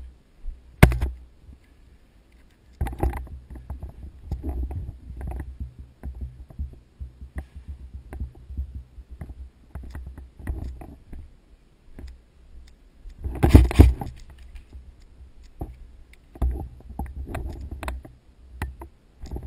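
Scuffing, rubbing and footsteps of a player moving with gear close to the microphone. There is a sharp click about a second in and a loud burst of scuffing about two-thirds of the way through.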